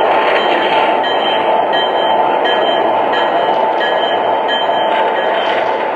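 Lionel Vision Line GG1 O-gauge model locomotive running, with a steady train running sound from its onboard sound system and its wheels rolling on the track.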